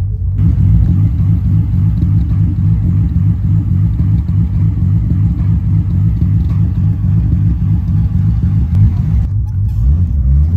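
Car engine idling with a loud, low, pulsing exhaust rumble. Near the end it gives way to the engine heard from inside the moving car.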